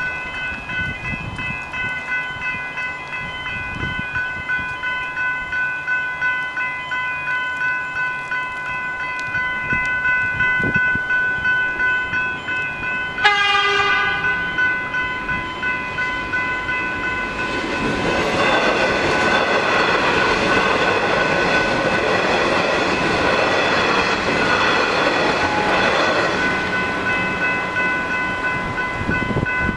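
Level crossing's General Signals Type 3 electronic bells ringing with a fast repeating ding. About halfway through, a short horn blast comes from the approaching train. Then an electric suburban train rushes through the crossing for about eight seconds.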